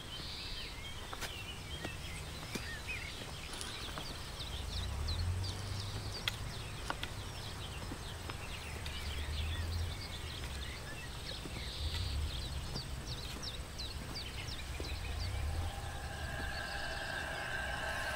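Countryside ambience: birds chirping and calling again and again, over a low wind rumble on the microphone that swells in gusts. Near the end, several steady held tones fade in.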